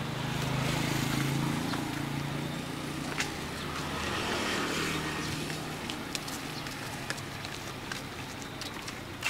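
A motor vehicle passing on the street, its engine a steady low hum that swells in the first two seconds and again about four to five seconds in.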